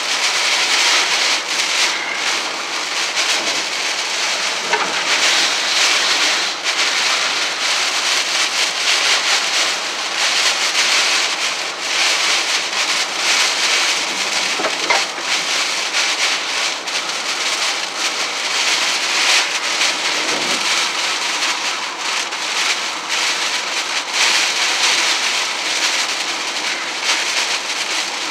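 Heavy storm rain pelting the windshield and roof, heard from inside a moving car, a steady dense hiss that swells and eases.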